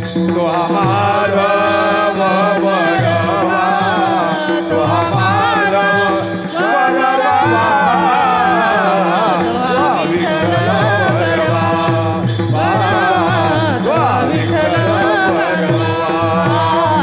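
Marathi devotional kirtan music: a drawn-out, wavering sung melody over a steady drone, with a repeating drum beat and small hand cymbals keeping time.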